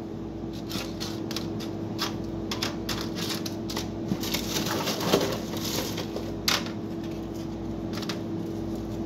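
Vanilla wafer cookies being set one at a time into a disposable aluminium foil pan: scattered light clicks and taps of wafers on the foil, over a steady low hum.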